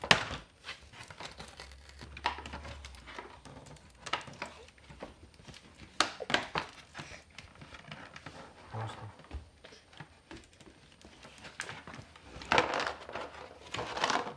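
Plastic and cardboard toy packaging crinkling and rustling as it is handled, broken by sharp clicks and knocks, with a longer burst of rustling near the end.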